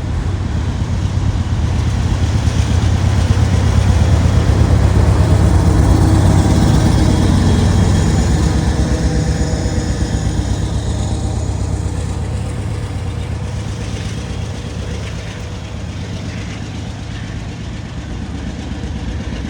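Diesel locomotive working as a DPU (distributed power unit) in a freight train, its engine chugging under load as it passes close by. It is loudest about four to seven seconds in, then fades gradually as it moves away.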